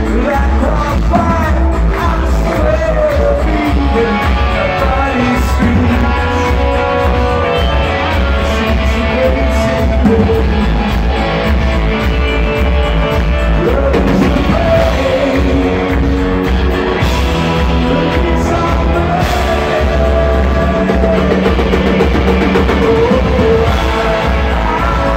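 Rock band playing live: a lead singer over acoustic and electric guitars and drums with a heavy, steady low end, heard loud from among the audience.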